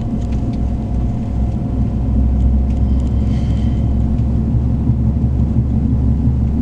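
Steady low rumble of a car driving, heard from inside the cabin, growing louder about two seconds in.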